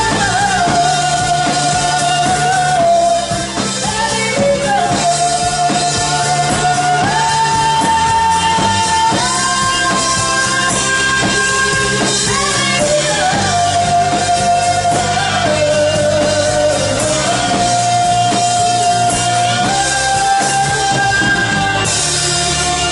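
A band playing a song with a lead singer, who holds long notes that step up and down in pitch over a steady bass line.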